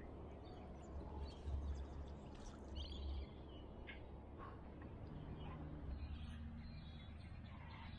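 Low rumble of handling and movement, heaviest for a couple of seconds about a second in, with a few faint bird chirps over it.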